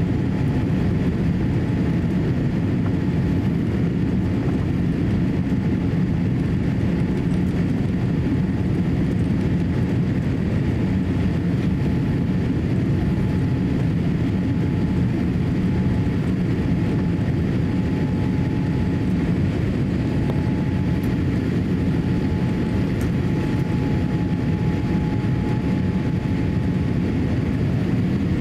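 Cabin noise inside a Boeing 787-8 airliner on its descent to land: a steady, even roar of engines and airflow, with a faint steady whine above it.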